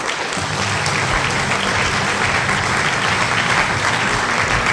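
Theatre audience applauding steadily at the end of a cabaret sketch.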